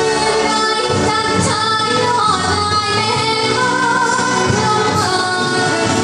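A Thai luk thung song played live: a woman sings into a microphone, holding long, wavering notes over the band's backing.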